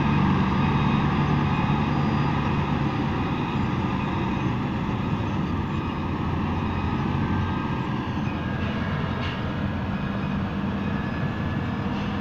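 Bulldozer's diesel engine running steadily, its low drone strongest in the first few seconds and then easing off slightly.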